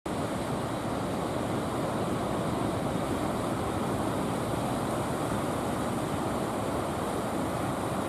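Heavy surf: big waves breaking and rolling in to shore, a steady rush of noise that does not let up.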